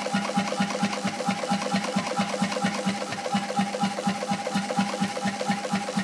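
Norwegian-built Stord 5 hp two-stroke hot-bulb marine engine from around 1935, running slowly and evenly at about five beats a second, with a steady high tone under the beats. The owner says it still needs tinkering to run nicely.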